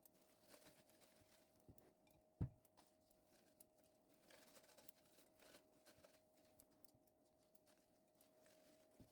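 Near silence: a faint steady hum with scattered faint clicks, and one short knock about two and a half seconds in.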